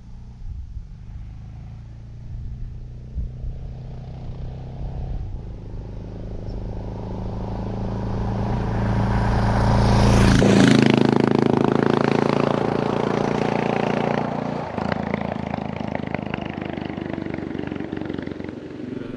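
A motorcycle riding past. Its engine grows louder for about ten seconds, drops in pitch as it passes about halfway through, then fades away.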